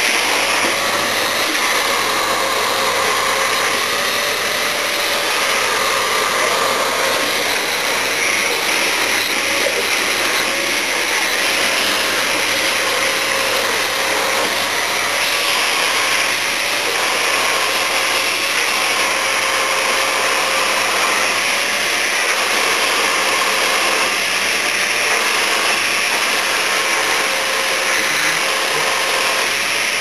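Canister vacuum cleaner running steadily while its hose nozzle is drawn over a cat's fur; the motor's hum wavers a little in pitch now and then.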